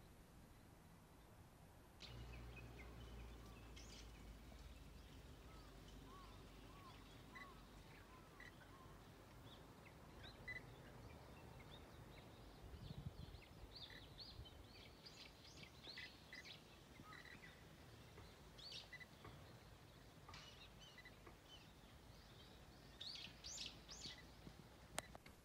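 Wild birds chirping and calling over faint outdoor background noise, starting about two seconds in, with many short calls that grow busier in the second half.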